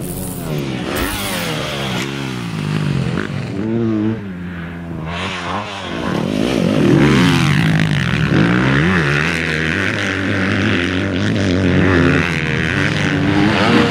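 Motocross dirt bike engines revving, the pitch rising and falling again and again, getting louder about six seconds in as a bike pulls away.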